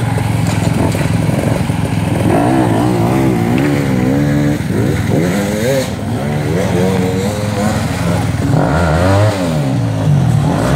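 Dirt bike engines revving up and down in short bursts as the bikes climb over rocky ledges, more than one engine heard at once.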